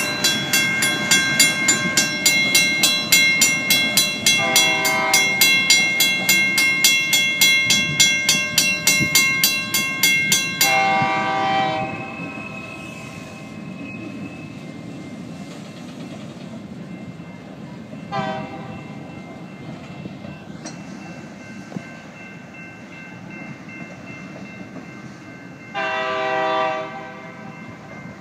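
Crossing signal's WCH mechanical bell ringing rapidly, about three strokes a second, over the low rumble of a freight train rolling away, then stopping about eleven seconds in. The train's horn sounds several separate blasts: short ones about five and eighteen seconds in, longer ones around eleven and twenty-six seconds in.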